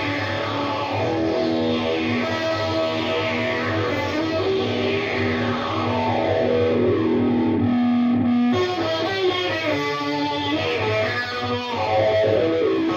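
Electric guitar played through a Digitech Dirty Robot synth pedal, a sustained synth tone with repeated downward sweeps every second or two. A long held low note breaks off about eight seconds in.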